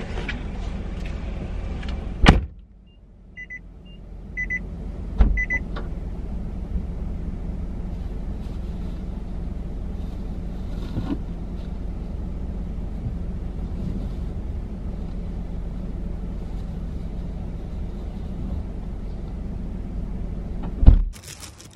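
Steady low rumble and hiss inside a parked car. There are loud thumps about two seconds in, about five seconds in and near the end, and three pairs of short, high electronic beeps sound between the first two thumps.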